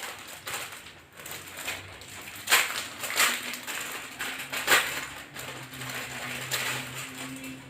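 Face mask packaging being torn and crinkled open by hand, with a run of rustles and a few sharp rips, the loudest about two and a half and nearly five seconds in.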